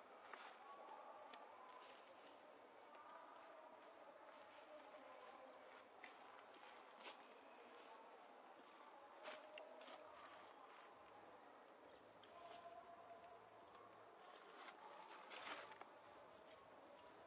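Near-silent outdoor ambience: insects droning on one steady high tone, with a few soft clicks, the loudest near the end.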